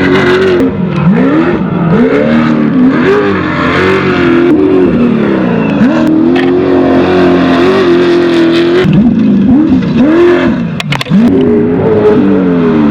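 Off-road race vehicle engines revving hard, the pitch sweeping up and dropping again and again as they accelerate and lift through the course. In the middle the revs hold steady for about three seconds before the rising and falling resumes.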